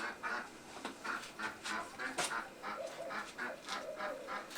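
Hands rapidly patting and slapping masa dough into tortillas: a quick, even run of soft slaps, about four to five a second.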